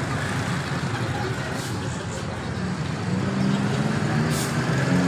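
Street traffic noise, a steady hum of vehicle engines, with people's voices coming in over it about three seconds in.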